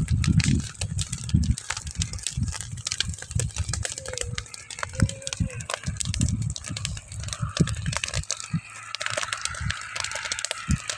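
Dry crop stubble burning in a field fire, crackling and popping densely over a low, uneven rumble.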